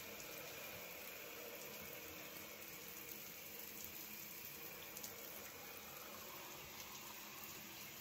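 Shower spray running steadily, water falling onto a soaked polyester long-sleeve shirt.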